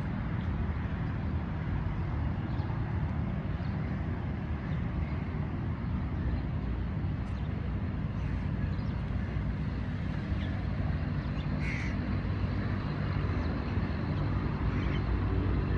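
Crows cawing now and then over a steady low rumble, with the clearest call about twelve seconds in.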